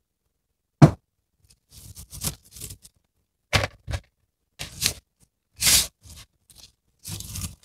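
Chef's knife striking a plastic cutting board while dicing cabbage, one sharp knock about a second in, followed by scattered scrapes and rustles as diced cabbage is pushed across the board and dropped into a plastic bowl.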